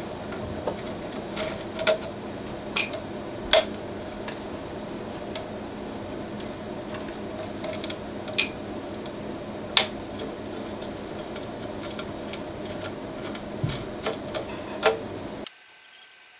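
Small, sharp metal clicks and clinks, a handful of them louder, from an Allen key and the small screws being backed out of a Prusa i3 MK3's heatbed and set down, over a steady hum. The hum stops abruptly near the end.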